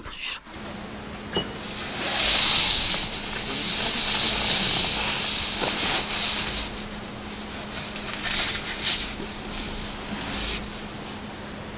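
Steady rushing hiss of the pond's pump-driven water cannon spraying water, over a constant low motor hum. The hiss swells about two seconds in and eases off near the end.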